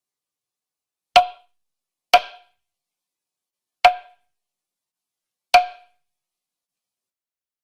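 Cartoon knocking sound effect: four sharp knocks, each with a short pitched ring that dies away quickly, unevenly spaced with a longer gap after the second.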